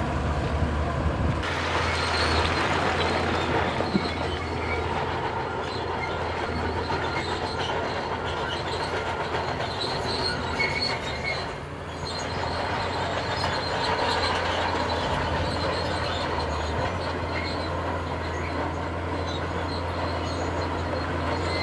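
Heavy tracked earthmoving machine, a bulldozer or excavator, working: a steady diesel drone under continuous metal clanking and squealing from its tracks.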